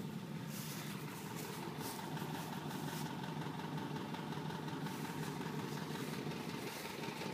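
1962 Volkswagen Beetle's air-cooled 1200 cc flat-four engine idling steadily.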